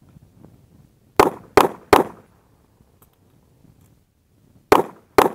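Handgun shots, each with a short echo: a quick string of three about a third of a second apart, then after a pause of nearly three seconds two more in quick succession.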